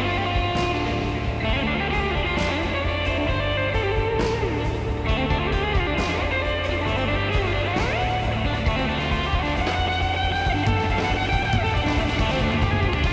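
Background rock music led by electric guitar, with a steady bass and beat.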